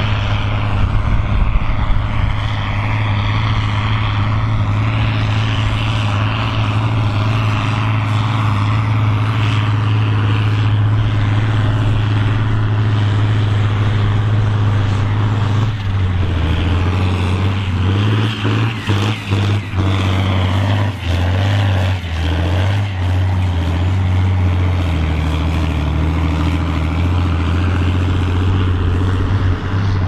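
Diesel tractor engines (a Volvo BM 810 Turbo and a John Deere) running hard under load while pulling ploughs through soil, a loud steady drone. About halfway through the note drops, then wavers and dips several times as engine speed changes.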